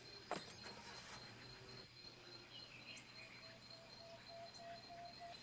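Faint outdoor ambience: a steady high insect drone with a few brief bird-like chirps, and one sharp click about a third of a second in.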